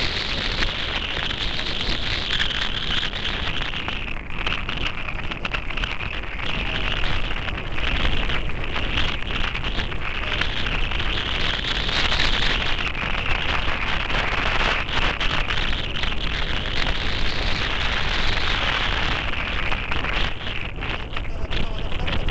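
Airbus A340 four-engine jet airliner at take-off thrust, a steady loud rushing roar with a hissing edge, mixed with wind buffeting the microphone.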